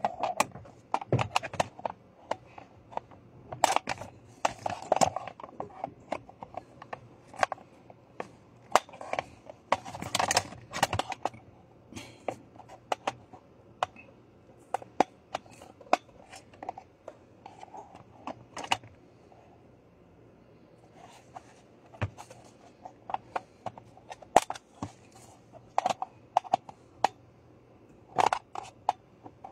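Irregular clicks, taps and light scraping of small hand tools and parts being handled during repair work, busiest in the first ten seconds and again near the end.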